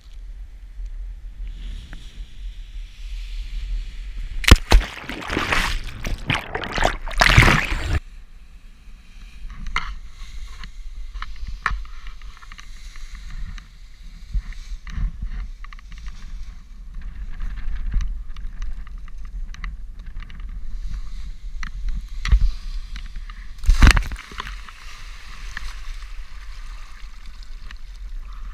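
Wind rushing over the microphone during a descent under canopy, loudest in strong gusts from about four to eight seconds in. Near the end comes a sharp splash as the pilot hits the lake, then water sloshing around him.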